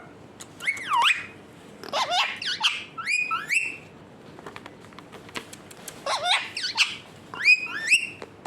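Pet parrot whistling in about five short bursts of gliding, warbling notes, with a few faint clicks between them.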